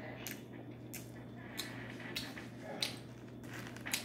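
Person chewing a mouthful of burger: wet mouth clicks and smacks, about six in four seconds, over a steady low hum.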